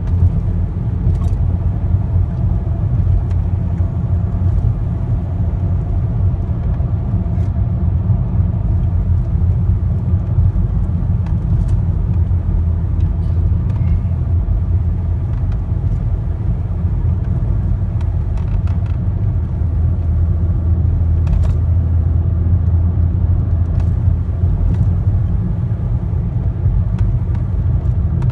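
Car driving, heard from inside the cabin: a steady low drone of engine and tyre road noise, with a few faint clicks now and then.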